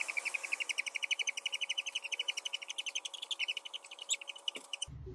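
A fast, even, high-pitched chirping trill of about sixteen pulses a second that cuts off abruptly shortly before the end.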